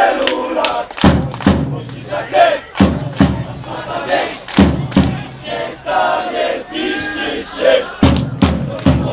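Football supporters chanting together in the stands, punctuated by loud thumps, several coming in quick succession near the end.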